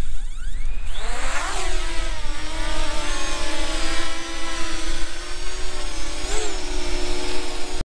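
Small quadcopter drone's motors spinning up with a rising whine over about a second and a half, then holding a steady pitched buzz, with a brief wobble in pitch near the end. A low rumble sits underneath, and the sound cuts off suddenly.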